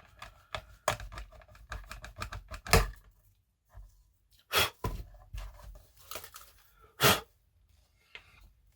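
Irregular clicks, rustles and knocks of plastic model parts and wiring being handled on a workbench. The three loudest knocks come about three, four and a half, and seven seconds in.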